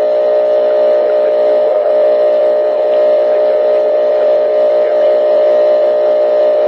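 Steady electrical buzz on a recorded telephone line: a loud, even drone of several tones together that does not change.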